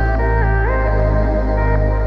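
Electronic background music: sustained synthesizer notes over a deep steady bass, with a synth line sliding in pitch about half a second in.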